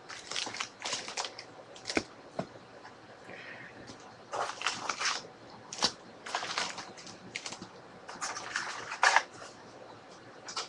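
Trading-card packaging being handled and opened: irregular rustling and crinkling bursts with sharp clicks and taps.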